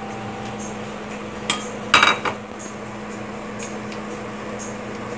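Glass lid knocking against a stainless steel cooking pot: a light knock, then a louder clatter of clinks about two seconds in, over a steady low hum.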